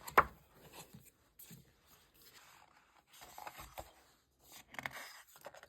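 Album photobook and its paper and plastic parts being handled: a sharp tap just after the start, then faint scattered rustling and scraping.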